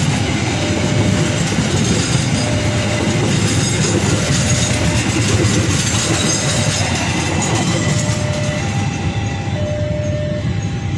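Argo Cheribon passenger train's coaches rolling past at close range: a steady, loud rumble of wheels on rail, easing slightly near the end as the last coach goes by. A short tone repeats about once a second throughout and alternates between two notes near the end.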